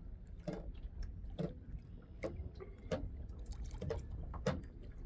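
Small waves lapping and slapping against a kayak's hull, a soft splash about every second over a steady low rumble of wind on the microphone.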